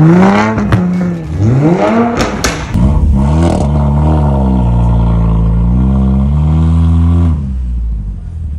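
Car exhaust revving in quick blips with a few sharp pops. Then a Skoda Octavia's tuned exhaust, its resonator removed and a vacuum exhaust valve fitted, holds a steady deep drone as the car pulls away. The drone drops off about seven seconds in.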